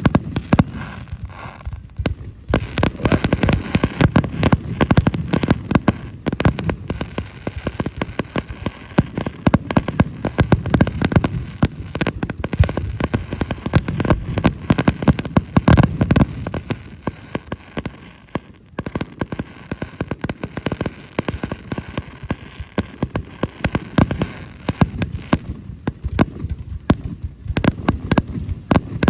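Fireworks grand finale barrage: a dense, continuous run of bangs and crackles, many shots a second, easing briefly twice before building again.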